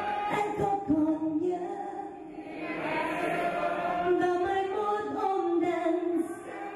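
A woman singing live into a handheld microphone over musical backing, holding long notes that step up and down in pitch.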